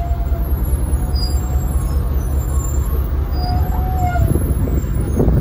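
Tour bus on the move: a steady low engine and road rumble, with a few rattling knocks near the end as it jolts over the road.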